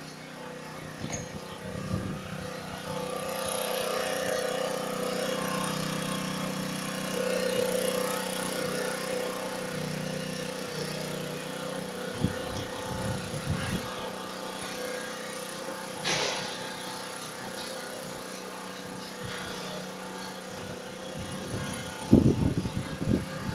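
An engine running steadily with an even hum, and a few low thumps near the end.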